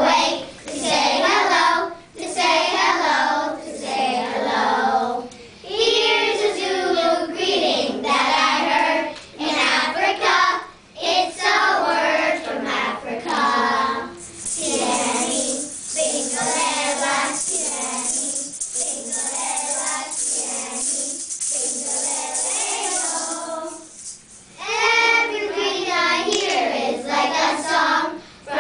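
A small group of young children singing together, line by line with brief pauses between phrases. A steady high hiss joins the singing for about ten seconds in the middle.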